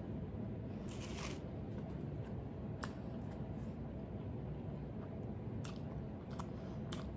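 A person chewing and biting dry jianbing flatbread, with a few sharp crunches about a second in, near three seconds, and several more in the last two seconds.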